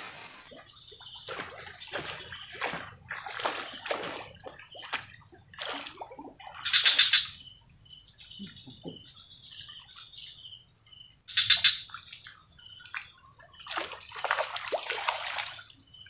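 Repeated splashing on the surface of a weedy creek while a casting lure is retrieved for snakehead, in short bursts, with the loudest splashes about 7 and 11 seconds in. A steady high-pitched whine runs underneath.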